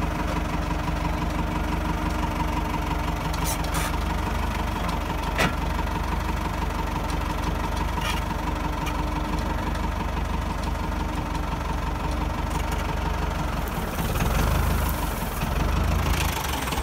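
Ford 6610 tractor's four-cylinder diesel engine idling steadily, with a few light clicks in the first half.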